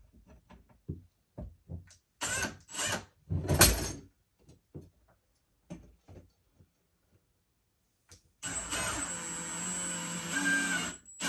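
Scattered clicks and knocks as a metal closet bracket is handled against the wall, then about eight seconds in a cordless drill-driver runs steadily for about two and a half seconds, driving a screw through the drywall into a wood nailer behind it.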